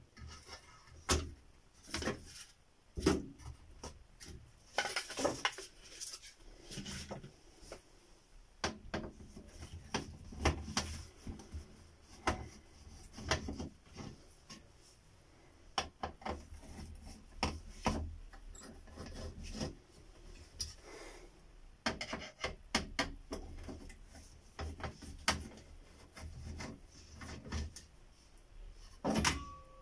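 Irregular clicks, knocks and scraping from hands taking apart an LED TV: plastic parts and a screwdriver knocking and rubbing against the metal back chassis.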